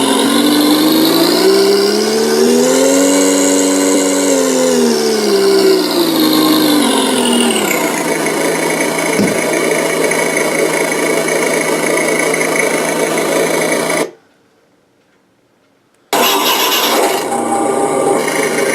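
Simulated truck engine sound from an RC car sound module's small speaker: it revs up, peaking about three to four seconds in, falls back to a steady idle, cuts out suddenly for about two seconds near the end, then resumes idling.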